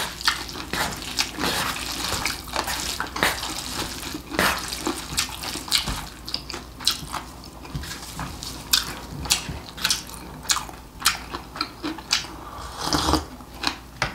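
Wet slurping and chewing of a mouthful of bibim-guksu (cold spicy noodles): a dense run of short wet smacks and clicks.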